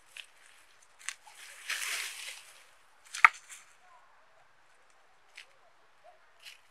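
Hands scraping and rustling through dry, crumbly soil and dead potato stalks while digging up potatoes, with several sharp clicks and knocks. The loudest click comes about three seconds in.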